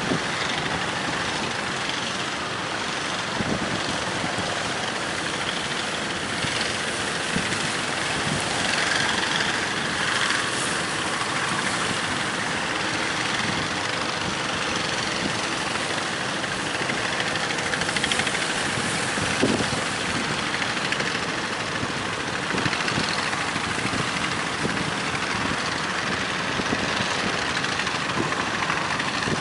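A fishing boat's engine running steadily at sea, under a constant rush of strong wind and waves.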